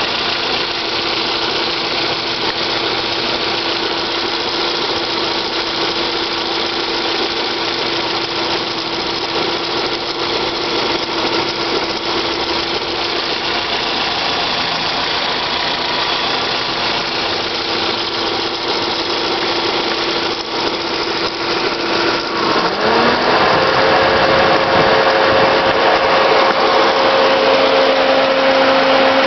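Fiat Palio HL 16-valve engine running with a steady whine, a strange noise from the belt area. About three-quarters of the way through, the pitch rises and holds higher and louder as engine speed goes up.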